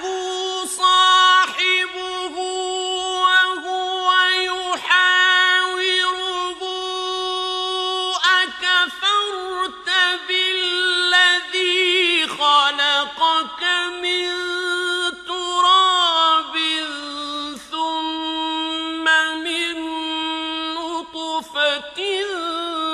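A male Quran reciter chanting in slow, melodic tajweed in a high, strong voice, drawing out vowels into long held notes with wavering ornaments, with added echo.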